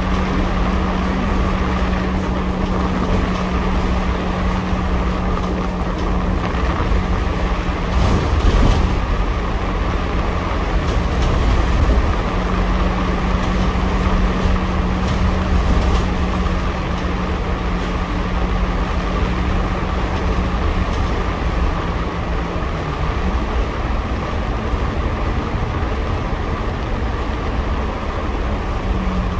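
Double-decker bus in motion, heard from the upper deck: a steady engine hum over continuous road rumble. The hum shifts slightly in pitch about three quarters of the way through.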